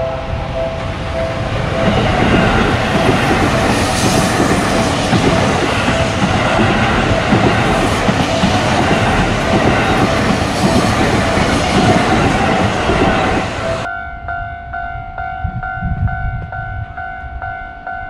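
Electric commuter train passing close by at a Japanese level crossing: loud rumble and wheel clatter over the crossing's electronic warning bell. About 14 seconds in, the sound cuts abruptly to another level-crossing alarm ringing its repeating kan-kan on its own.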